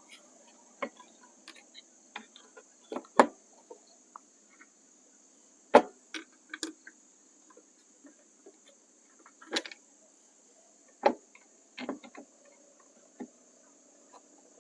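Scattered, irregular clicks and taps of plastic parts being handled as an LED bulb and its twist-lock socket are fitted back into a turn signal lamp housing, the loudest about three and six seconds in.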